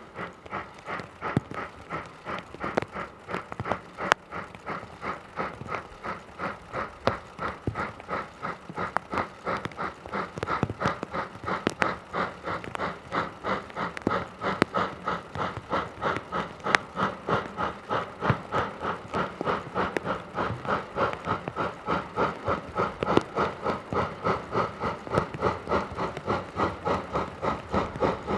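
JNR Class C57 steam locomotive C57 1 working, its exhaust chuffing in a steady, even rhythm of about three beats a second with steam hiss.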